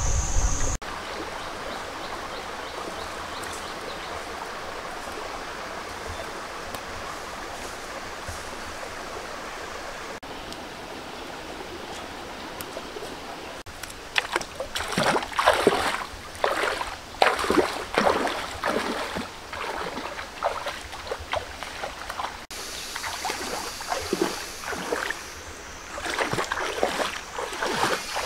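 Shallow rocky stream running steadily. About halfway through, bare feet start splashing as they wade through the water, in irregular steps.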